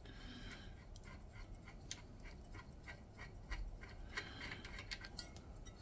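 Faint, irregular light metallic clicks and scrapes of a steel hex nut being spun off the threaded pinion shaft of a Honda GL1000 Goldwing final drive by hand.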